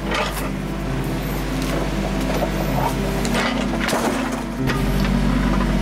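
Kubota backhoe's diesel engine running steadily while the wooden greenhouse sidewall is pulled over, its boards knocking and cracking several times as they are dragged and break loose.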